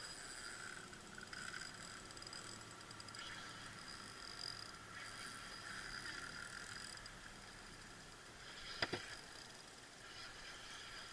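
Fishing reel being worked while an angler fights a hooked salmon, a faint steady mechanical ticking and whirring, with one sharp knock about nine seconds in.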